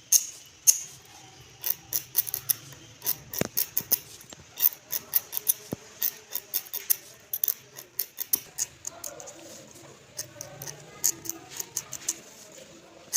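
A rapid, irregular series of sharp clicks and taps, several a second, with a faint low murmur in the background partway through.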